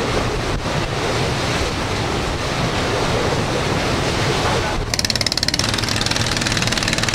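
Wind buffeting the microphone over the rush of the ship's wake along the hull. About five seconds in, the fast, rattling beat of a motorized outrigger canoe's (banca's) small engine comes in.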